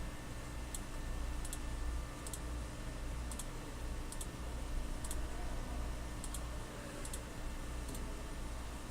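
Clicking at a computer: about nine short, sharp clicks spaced roughly a second apart, several of them a quick pair, over a steady background hiss and hum.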